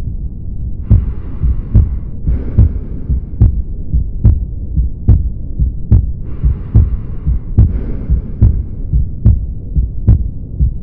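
Heart sounds heard through a stethoscope, a regular sharp beat about every 0.85 seconds, some 70 a minute, over a low rumble. A hiss comes and goes in pairs of roughly one-second stretches.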